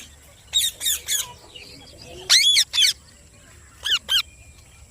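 Parrot calling: short, high, wavering calls in three groups, the loudest about halfway through.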